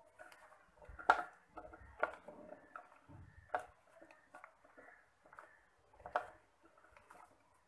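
Spice-coated raw green mango slices being mixed by hand in a ceramic dish: soft squishing and rubbing, with a few sharper knocks of pieces against the dish.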